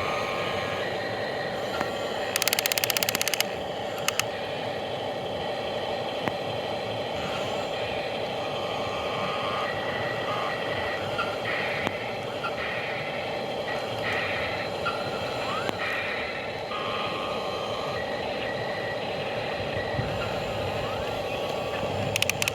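Excavator machinery running steadily, with short intermittent beeps. A rapid clicking rattle sounds for about a second, two and a half seconds in.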